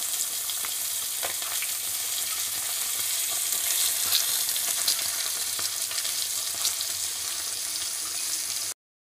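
Boneless milkfish (bangus) fillets frying in oil in a pan: a steady sizzle with scattered small pops and crackles, cutting off suddenly near the end.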